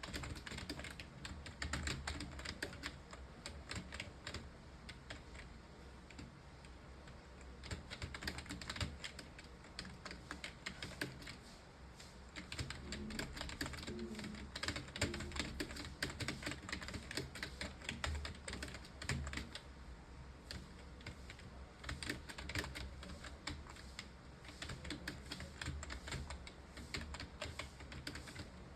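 Fast, continuous typing on a computer keyboard, with a rapid stream of keystroke clicks broken by a couple of brief pauses.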